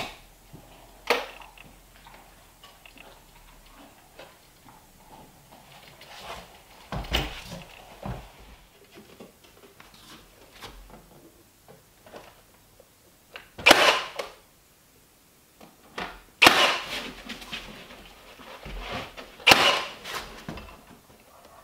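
A cordless nail gun firing nails into wooden window trim: a series of sharp shots a few seconds apart, the loudest three in the second half.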